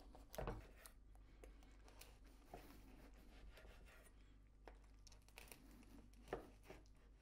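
A large kitchen knife cutting through a crusty baguette on a wooden board: a few faint crackles of the crust, the clearest about half a second in and twice just after six seconds.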